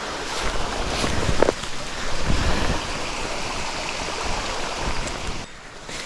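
Steady rush of flowing water in a stream channel, with wind buffeting the microphone and a few light knocks about a second in.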